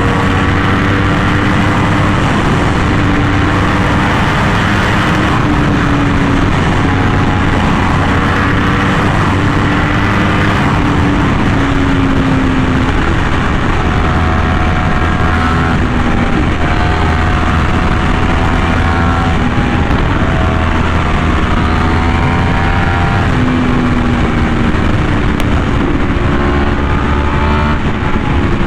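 Yamaha R1M's crossplane inline-four with an SC Project exhaust, ridden at speed. The engine note climbs and drops in steps as it pulls through the gears.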